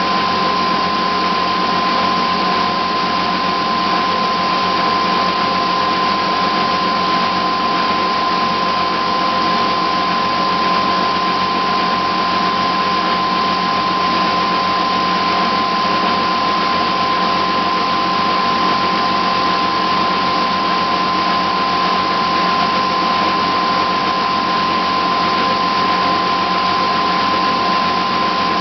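Small 400-watt spin dryer running at full spin speed, a steady whine over a constant rush, while its drain hose pours the spun-out water into a stainless steel sink.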